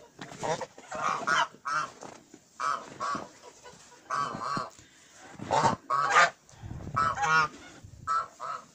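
Domestic geese honking: a run of short nasal calls from several birds, overlapping in twos and threes, with brief gaps between.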